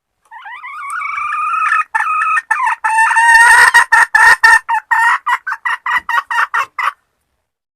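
Female junglefowl calling to solicit mating: a drawn-out rising note, then a run of short clucking notes, about three a second, that stops near the end.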